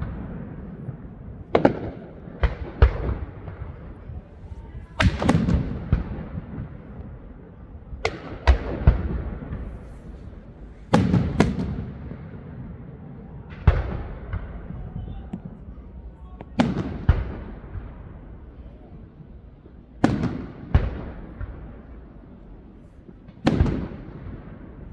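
Fireworks display: sharp bangs of bursting fireworks, one to three at a time about every three seconds, each trailing off in a rumbling echo.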